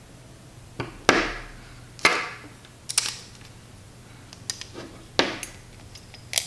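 Sharp clacks and knocks of hand tools and carbon fiber frame parts being handled and set down, about seven separate hits roughly a second apart, each with a short ring; the loudest two come about a second and two seconds in.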